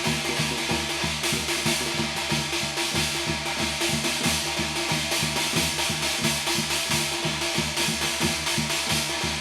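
Korean shamanic ritual (gut) music: a fast, steady drum beat, about four strokes a second, under sustained held tones.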